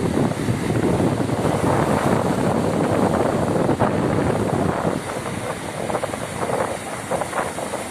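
Wind buffeting the microphone over the rush of sea surf, a loud uneven noise with no clear tone.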